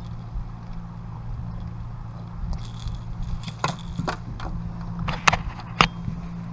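Handling noise from the catfish and tackle: several sharp clicks and light rattles, the loudest two near the end, over a steady low hum.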